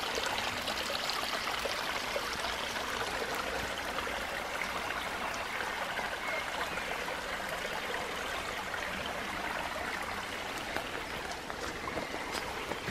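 Shallow woodland stream running and babbling over stones in a steady rush, with light rain falling on the water.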